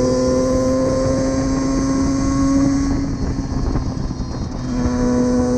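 Suzuki Valenti SM 50's small two-stroke engine running at steady revs under way. About three seconds in, its note fades out for a second or two, then comes back at the same steady pitch near the end.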